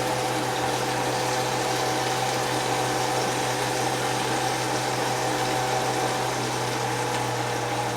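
Steady low hum with a hiss and a few faint steady tones, from a running kitchen appliance.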